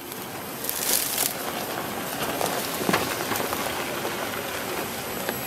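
Chevrolet Colorado ZH2 fuel-cell pickup's off-road tyres crawling over loose rocks and gravel: a steady crunching crackle with scattered sharp cracks of stone, louder for a moment about a second in.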